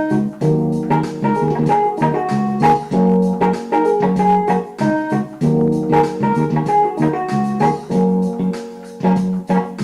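Background music: organ and keyboard chords over a steady beat.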